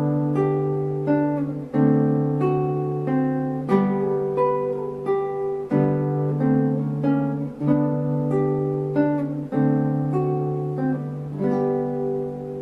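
Background music: acoustic guitar picking notes over a held low bass note, with a fresh chord struck about every two seconds.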